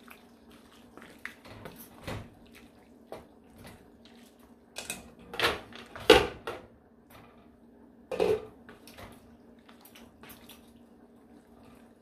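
Wooden spoon stirring pasta in a thick cream sauce, scraping and knocking against the sides of a metal pot. There are louder clatters of a glass pot lid being moved on the stovetop about five to six seconds in and again around eight seconds.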